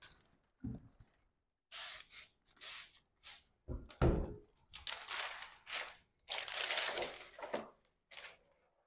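Trigger spray bottle squirting water in a run of short hisses onto window film and glass, with the plastic film crinkling as its backing is peeled away. A loud knock about four seconds in, as the bottle is lifted from the table.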